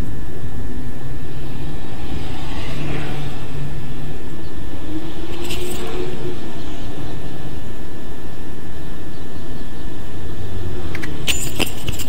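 Steady, loud, low rumbling drone, with a faint tone that rises and falls in the middle and a few sharp clicks near the end.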